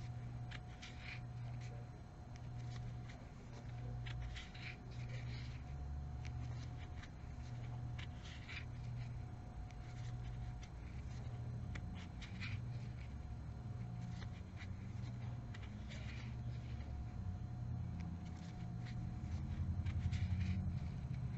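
Crochet hook and yarn working stitches: soft scratches and light ticks, over a low hum that pulses about once a second.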